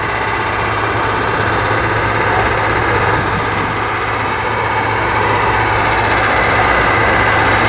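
Loud, steady motor-vehicle noise with a low hum running underneath. It changes abruptly at the very end.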